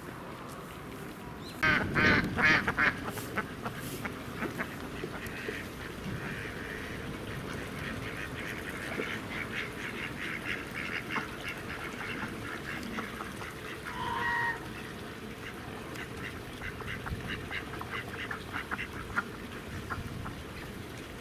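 Domestic ducks and geese calling. A loud burst of harsh calls comes about two seconds in, then a long run of rapid quacking, with a single short held honk about two-thirds of the way through.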